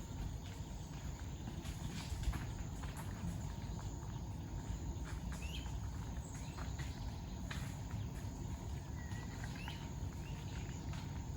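Open pasture ambience: a steady low rumble, with a few short high chirps and scattered light clicks or knocks.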